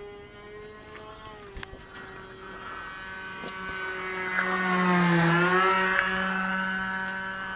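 O.S. Max .40 two-stroke glow engine with a 10x5 propeller running steadily on a model airplane in flight. The engine note grows to its loudest about five seconds in as the plane passes close, its pitch dipping briefly, then fades as it moves away.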